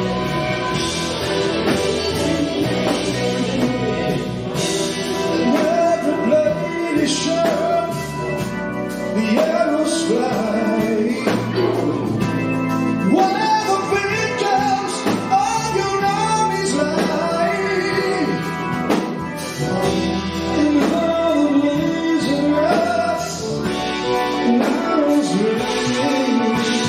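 Live progressive rock band playing with electric guitars, keyboards and drums, a male voice singing the melody over it, recorded from the side of the stage on the camera's own microphone.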